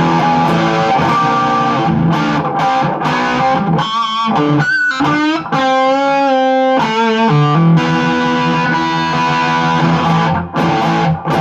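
Electric guitar played with distortion, sustained notes with string bends and vibrato in the middle.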